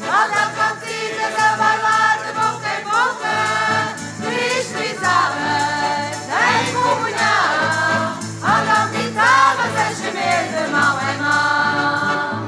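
Azorean folk song played on two piano accordions, an acoustic guitar and a jingling tambourine, with a mixed choir singing along.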